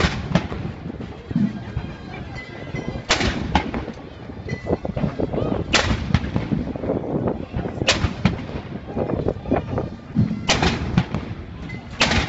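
Artillery guns firing a ceremonial salute, shot after shot, one about every two to three seconds, each a sharp report with a short trailing echo.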